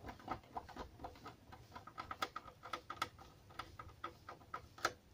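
Screwdriver turning a small screw into the amplifier's metal rear panel, fastening the input-jack board back in place: a quick, irregular run of light ticks and clicks, the sharpest one near the end.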